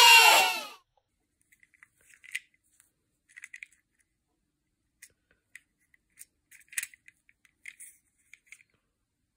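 Small, scattered clicks and scratches of a miniature plastic Suzuki Jimny toy car being handled and turned in knit-gloved hands. Before that, a loud pitched sound gliding down in pitch cuts off within the first second.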